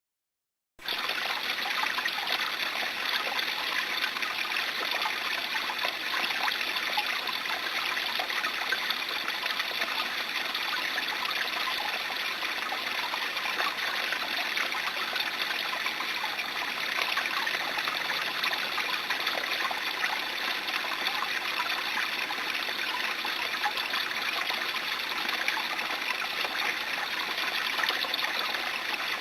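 A small shallow brook babbling: a steady rush and trickle of running water, which cuts in abruptly less than a second in.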